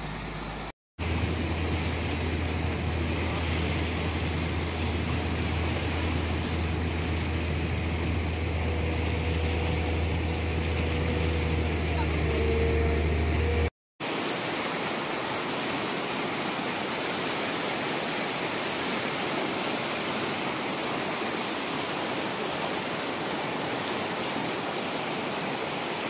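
River water rushing and churning around concrete culvert pipes: a steady, even rush. A low hum runs under it in the first half, and the sound breaks off for an instant about a second in and again near the middle.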